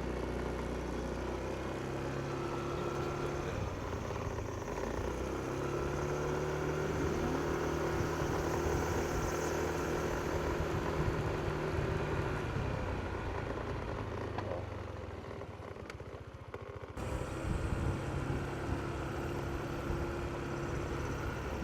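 Yamaha NMAX125 scooter's 125 cc single-cylinder engine running during a ride, its note rising and falling with speed. About 17 seconds in, the sound changes abruptly.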